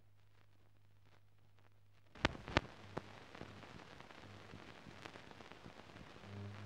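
Soundtrack noise of an old newsreel film print: a low hum with faint ticks, then about two seconds in two sharp pops in quick succession and a third soon after. A steady crackle and hiss follows, and the hum grows louder near the end.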